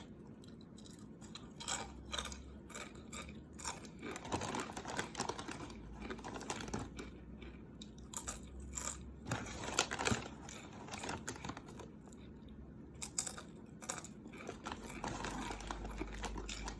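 SunChips Harvest Cheddar multigrain chips being chewed, with irregular crunches throughout.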